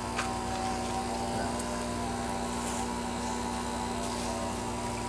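Small electric pump motor running with a steady, even hum.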